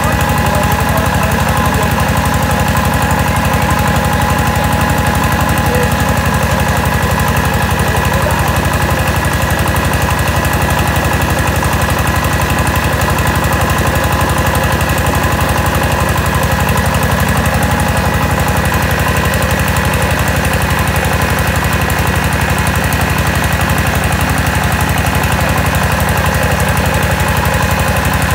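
Mobile rice huller running steadily under its engine, a fast even knocking beat with a steady whine from the milling machinery above it.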